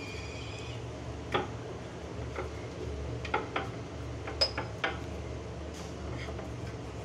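A few scattered light clicks and taps from hands handling rice-flour dough on newspaper, over a steady low hum.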